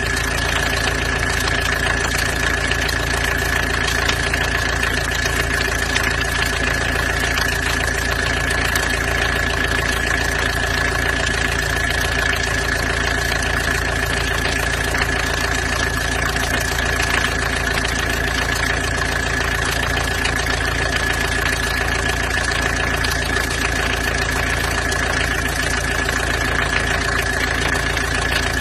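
Peugeot 505 GLD's diesel engine idling steadily, with a steady high-pitched whine running through it.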